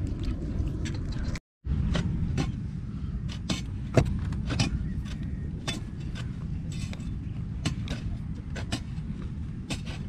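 Repeated sharp knocks, about once or twice a second and the loudest about four seconds in, from a long iron digging bar being driven into the soil of a post hole, over a steady low rumble of wind on the microphone. The sound cuts out for a moment near the start.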